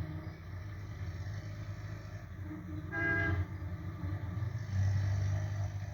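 Small van engine running steadily, with one short horn toot about three seconds in.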